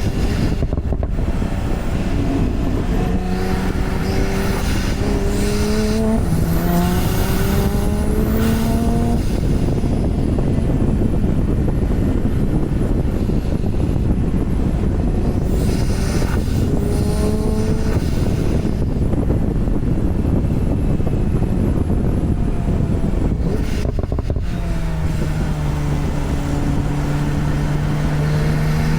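Porsche 991 Turbo's twin-turbo flat-six engine accelerating, its pitch rising with a gearshift drop about six seconds in, then cruising before pulling again near the end, over heavy road and wind noise.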